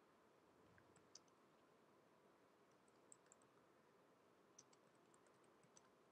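Faint computer keyboard keystrokes: a few short, irregular runs of light clicks over near silence as a command is typed.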